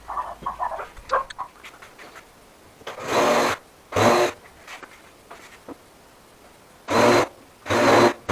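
Power driver running in four short bursts, two pairs about a second apart, driving screws into a timber frame; small knocks of wood between.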